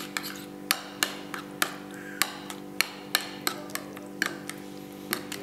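Metal spoon clinking and scraping against a ceramic plate while mixing and mashing chickpea curry: irregular sharp taps, about two a second.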